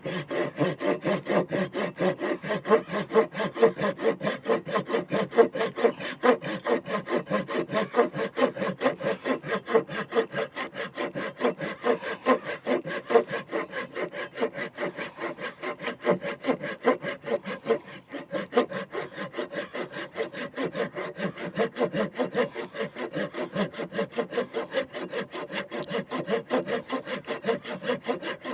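Kerye mini Japanese-style folding pull saw, on its finer-tooth blade, cutting through a wooden stick with quick, even back-and-forth rasping strokes.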